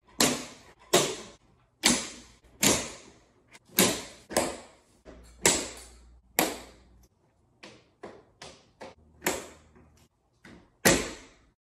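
Hunter Douglas Applause motorized honeycomb shade headrails clicking into their mounting brackets. A dozen or so sharp clicks, some fainter than others, each trailing off in echo in a high-ceilinged room.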